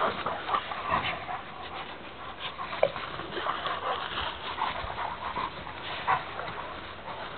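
Two Dogo Argentinos, an adult and a puppy, play-fighting: panting and scuffling, with a few short sharp sounds, the loudest about three seconds in.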